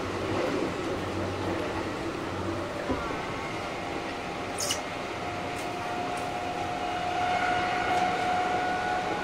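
Kintetsu 1230 series electric train heard from on board, its Hitachi GTO VVVF inverter whining in several steady tones that come in around the middle and rise slowly in pitch as the train gathers speed, over the running hum of the car. A brief sharp high squeak sounds about halfway through.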